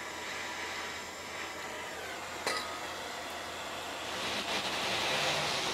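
Handheld propane torch burning with a steady hiss, its flame held on the shock absorber's lower mounting nut to heat it loose. There is a short click about two and a half seconds in, and the hiss grows louder about four seconds in.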